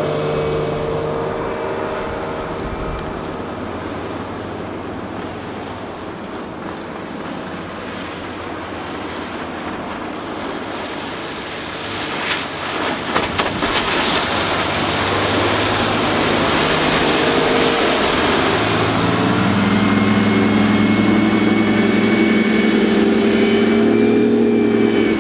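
Mercruiser 4.3-litre V6 stern drive of a Bayliner 192 motorboat running at speed, with hull and water noise. The engine note grows louder and clearer over the last several seconds as the boat comes closer, and a cluster of short knocks sounds about halfway through.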